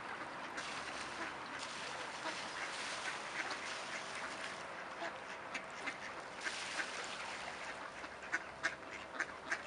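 A flock of mallard ducks quacking, many short calls overlapping, coming thicker and sharper toward the end.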